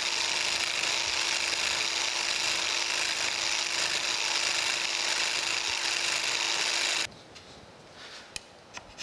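Biax power scraper running steadily as it cuts a rough crisscross scrape pattern into the planer's cross-slide casting, a dense scraping noise over a constant hum. It stops abruptly about seven seconds in, leaving a few light clicks.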